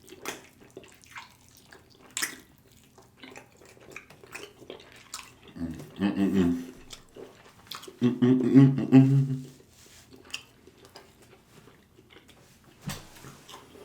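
Close-up wet eating sounds: mouth clicks and smacking while eating barbecue, with two short low voiced sounds a little past the middle.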